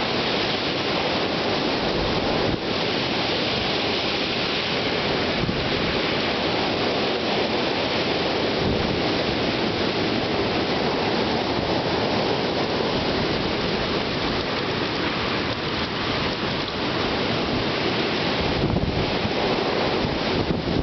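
Heavy rain driven by strong wind, a steady dense rush with no letup, mixed with wind buffeting the microphone.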